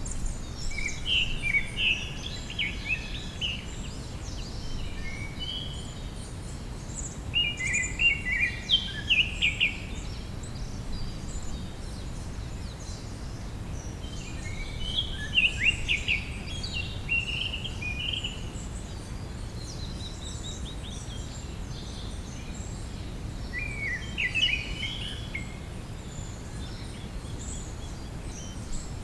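A songbird singing a rapid, twittering phrase of quick chirped notes about every seven or eight seconds, four phrases in all, over a steady low rumble.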